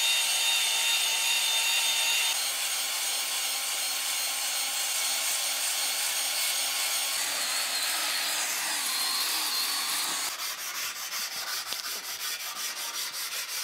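Cordless drill spinning a cylinder hone inside a bore of a cast-iron Holden 304 V8 block, the hone rasping against the cylinder wall. About ten seconds in this gives way to a fast, rhythmic rasping as a flat stone is rubbed back and forth across the block's deck face to clean the surface.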